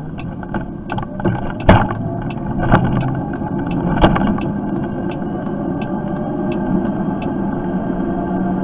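Riding noise of a Lexmoto Impulse 1.5 kW electric moped as picked up by its built-in camera: a steady hum and road noise with light rattling clicks in the first half. Two sharp knocks come a couple of seconds apart, and a faint whine rises slowly in pitch over the second half.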